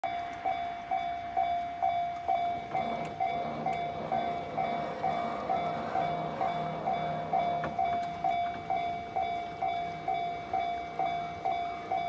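Japanese railway level crossing's electronic warning bell in the JR standard tone, ringing about twice a second with each strike fading before the next. A low hum joins in under it from about three seconds in and fades around eight seconds.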